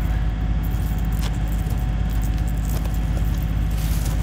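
Steady low rumble of road traffic crossing the concrete highway bridge overhead, with a few light clicks of handling mixed in.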